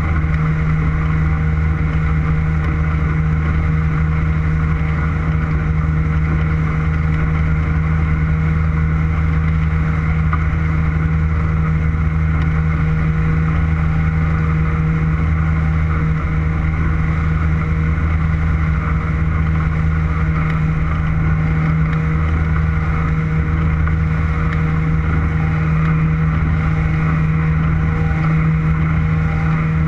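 Motorboat engine running at a steady speed while the boat is under way, an even hum that holds one pitch with no revving.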